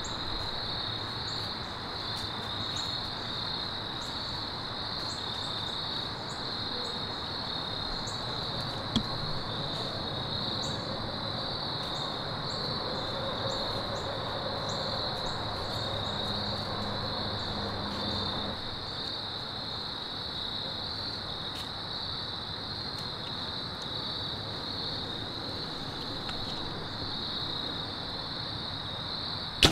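A steady chorus of crickets, a continuous high trill, over a faint low rumble that drops away about two-thirds of the way through. A single sharp click about nine seconds in.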